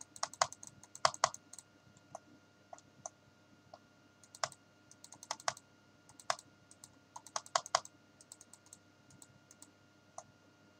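Computer keyboard and mouse clicking: sharp, short clicks in irregular clusters of two to five, over a faint steady hum.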